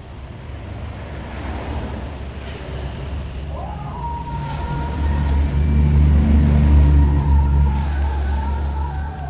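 A motor vehicle engine running and growing louder to a peak about five to seven seconds in, then easing off. A steady high whine comes in about four seconds in.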